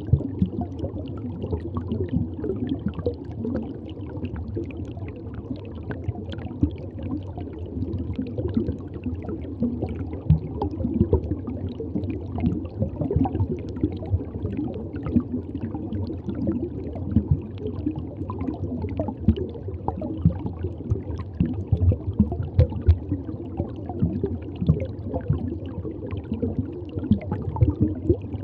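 Aquarium water gurgling and bubbling: a steady low rush dotted with many small irregular pops.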